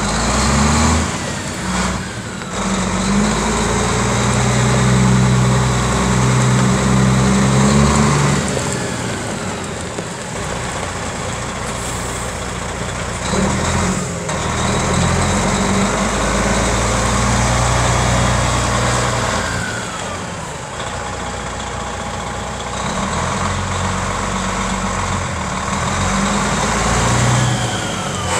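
1994 International 8300 truck tractor's diesel engine running as the tractor drives slowly around the lot. The engine note rises and falls several times as the throttle and gears change.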